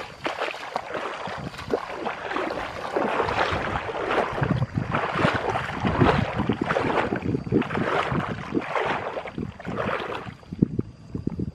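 Legs wading through shallow muddy water, sloshing and splashing with each uneven step. The splashing stops about ten seconds in, leaving only a few faint knocks.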